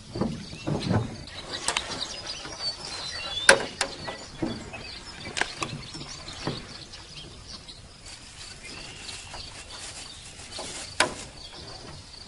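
Scattered clicks and knocks from gear being handled in a metal jon boat, the sharpest about three and a half seconds in and another near the end. Under them runs a faint steady high insect trill, with a few bird chirps.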